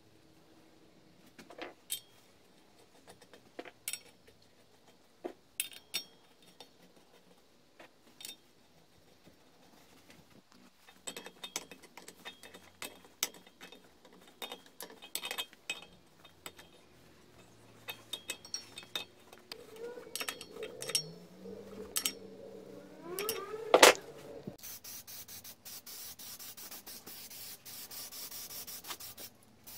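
Scattered metallic clicks and clinks of a spanner on coach-screw heads as a steel base plate is screwed down onto a wooden stump. Near the end an aerosol can of spray paint hisses steadily.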